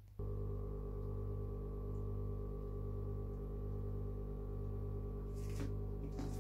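A steady droning hum of several held tones that starts abruptly about a quarter second in and stays level. Faint rustles come near the end.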